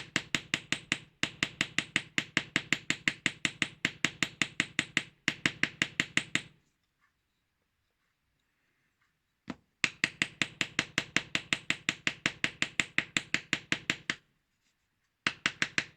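Rapid light hammer taps on the blade of a Japanese kanna hand plane, about six a second, in long runs that stop for about three seconds in the middle and briefly near the end: the blade is being tapped into its wooden body to set how far it projects and to level it side to side.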